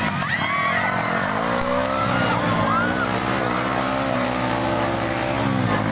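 Dirt-bike engines revving up and down as the bikes labour up a steep dirt slope, with people shouting over them.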